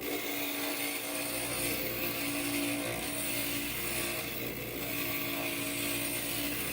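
Inland stained glass grinder running steadily as a piece of glass is ground against its spinning bit, a steady hum with a hiss of grinding.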